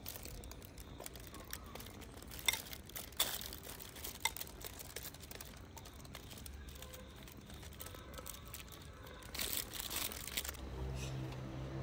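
Crinkling and handling noises with a few sharp clicks scattered through, and a busier stretch of rustling shortly before the end. Music comes in near the end.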